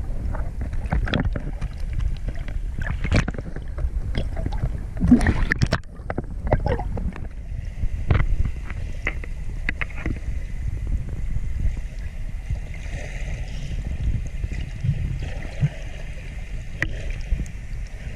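Muffled underwater noise from an action camera held just below the surface: a steady low rumble of moving water with scattered clicks and bubble pops.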